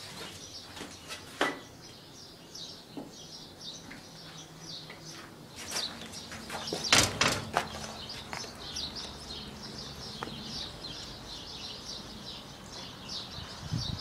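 Birds chirping steadily, with a few sharp knocks, the loudest cluster about seven seconds in.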